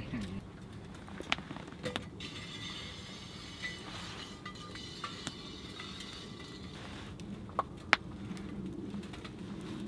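A small twig fire crackling in a folding firebox stove: scattered sharp pops and clicks over a low, steady background, the loudest two a little before the end.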